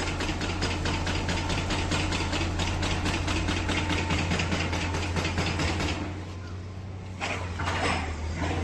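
Diesel engine running steadily with a rapid, even clatter. It drops quieter about six seconds in, and a few short rough noises follow near the end.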